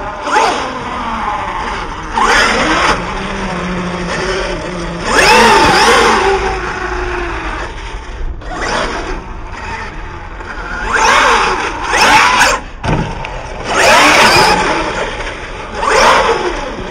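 Electric RC short-course truck driving hard on a dirt track: the motor and drivetrain whine swells and falls in repeated bursts of throttle, with tyres scrabbling on loose dirt.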